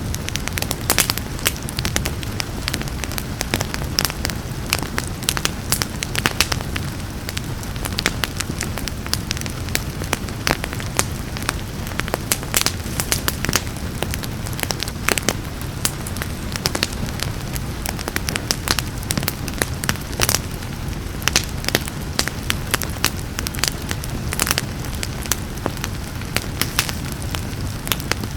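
Wood fire crackling and popping in irregular sharp snaps over a steady low rumble of flames, with a soft patter of rain.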